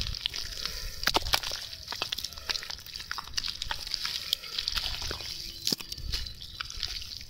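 Hands digging and squeezing through soft wet mud after an eel: irregular wet squelches, slaps and drips, over a steady high hiss.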